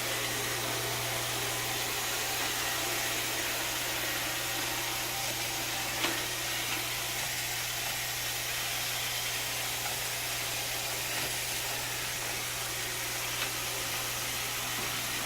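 Roomba 680 robot vacuum running steadily on a hard floor: a constant motor hum with the hiss of its suction and brushes. Two small clicks, about six seconds in and near the end.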